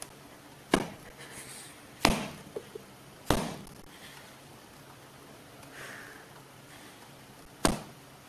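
Four sharp knocks, each with a short ring. The first comes under a second in, the next two about a second and a quarter apart, and the last near the end. Two faint clicks fall between the second and third.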